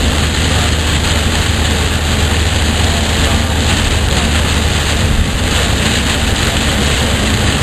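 Heavy rain hitting a car's roof and windshield, heard inside the moving car's cabin, over steady tyre and road noise on the wet pavement and a low engine drone.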